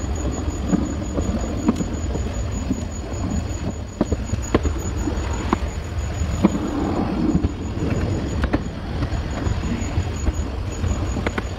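Narrow-gauge railway train running along the track: a steady low rumble with scattered sharp clicks of the wheels over the rails.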